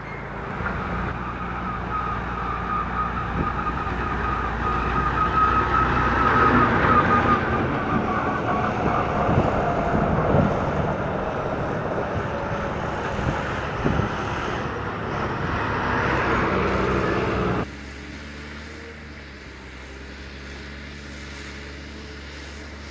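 Heavy construction machine's diesel engine working, with a high whine that sinks slightly in pitch and a few knocks. About eighteen seconds in it cuts off suddenly to a quieter, steady engine hum.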